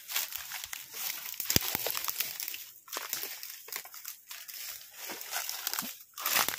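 Irregular crunching and crackling of footsteps pushing through dry leaves and undergrowth.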